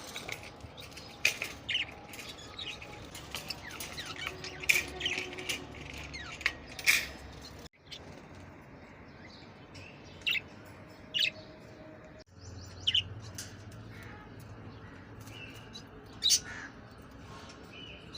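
Pet parrots giving short, sharp chirps, scattered and irregular, several close together in the first seconds and then a few isolated calls.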